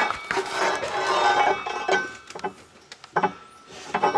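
Metal engine parts being handled: sharp clinks, a stretch of scraping with a faint metallic ring, then a few more knocks as a sheet-metal housing is worked loose.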